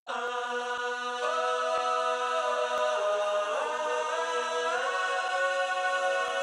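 Song intro: sustained chords that change a little over a second in and bend in pitch around the middle, with soft ticks keeping a beat about twice a second.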